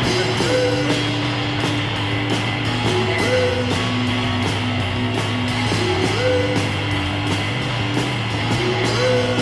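Rock music with a steady beat, a short melodic phrase repeating about every three seconds.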